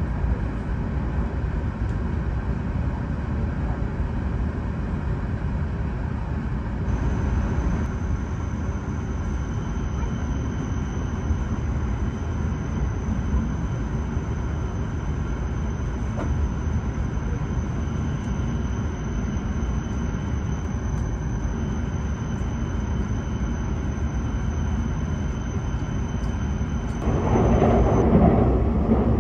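Cabin noise inside a moving E7 series Shinkansen car: a steady low rumble of the train running on the track. A faint steady high tone joins about seven seconds in, and there is a brief louder rush near the end.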